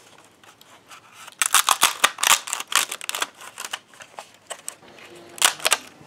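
Hard plastic clicks and clacks from a 3D-printed PLA puzzle box being handled. A dense run of them starts about a second and a half in, then come scattered single clicks and a short flurry near the end.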